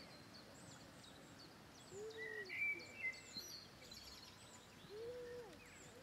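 Several birds singing and calling: a run of short high chirps throughout, a louder call about two and a half seconds in, and two lower, arching calls about two and five seconds in.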